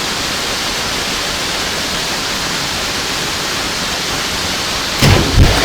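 Steady rushing roar of a tall waterfall pouring into its plunge pool. A couple of loud, low thumps come close together near the end.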